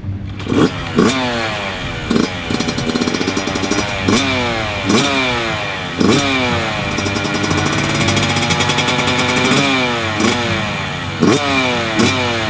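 Yamaha YZ85's 85cc two-stroke engine revving hard, again and again: the pitch shoots up sharply, then slides down, about a dozen times.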